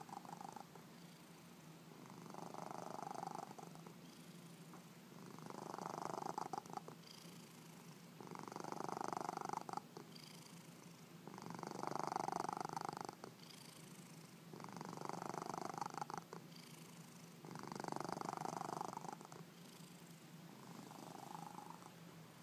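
Domestic cat snoring in its sleep: a soft rasping sound on each breath, about every three seconds.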